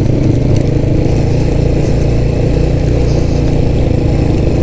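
Single-cylinder 125cc motorcycle engine running steadily under way, heard from the rider's seat, with wind noise on the microphone.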